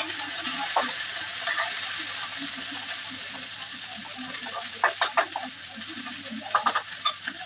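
Chopped okra frying in a stainless steel kadhai with a steady sizzle, while a spatula stirs it, scraping and clinking against the pan several times, mostly about five seconds in and near the end.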